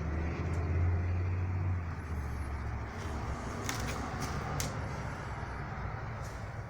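A motor vehicle's engine rumbling close by, loudest about a second in and then easing off, with a few faint light clicks.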